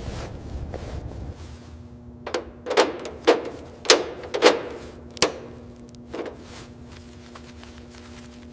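A series of about seven sharp knocks at an uneven pace, each ringing briefly, over a faint steady hum, after a second or so of low rumbling.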